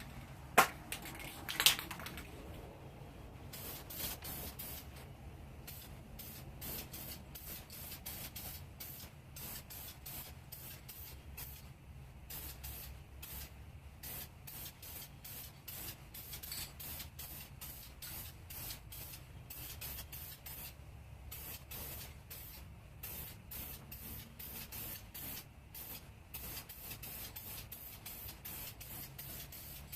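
Aerosol can of 2000-degree high-heat paint sprayed in many short, irregular hissing bursts over a low steady hum, with two sharp clicks near the start.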